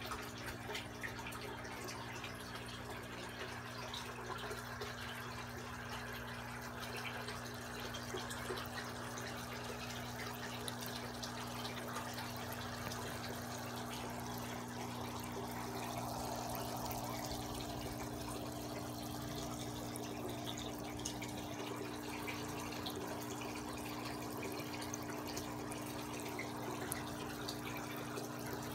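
Water trickling and bubbling into a fish tub, over a steady low hum.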